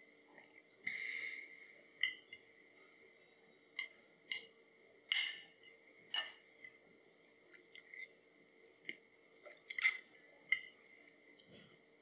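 Fork clinking and scraping on a plate while eating spaghetti: a dozen or so irregular sharp clicks, with a longer scrape about a second in, over a faint steady hum.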